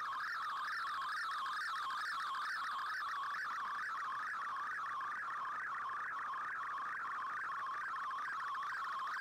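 Shortwave digital picture signal from an Icom IC-R8600 receiver in AM mode: a steady warbling data tone that ripples about three times a second. It is the sound of a colour picture being sent in fldigi's MFSK picture mode.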